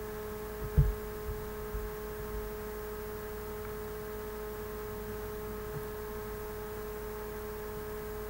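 Steady electrical hum of the recording setup, several fixed tones with one stronger middle tone over a faint low rumble. A single short low thump about a second in.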